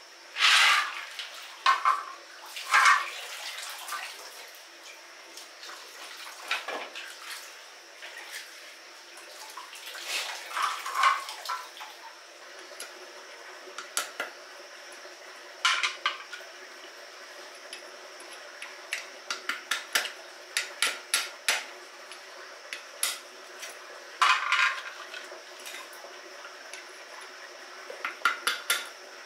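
A kitchen knife chopping snails on a small wooden board: sharp clicks in quick runs of several strokes each, over the steady rush of a stream. In the first few seconds, snails clatter and slosh in a metal pot of water.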